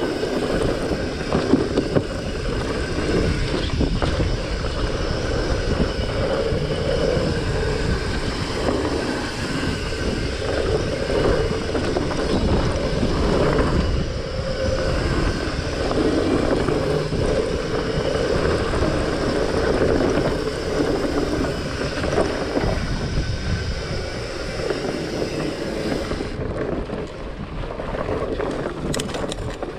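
Fat bike ridden along dirt singletrack: its wide knobby tyres hum and crunch over the trail, with wind rushing on the microphone and the bike rattling. The high hiss drops away near the end.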